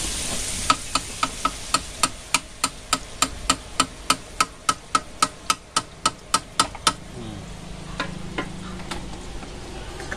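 Metal tapping on a perforated boondi ladle held over a kadai of hot oil, about three to four ringing taps a second that knock the gram-flour batter through in drops and stop about seven seconds in. Under the taps, the batter drops sizzle as they fry in the oil.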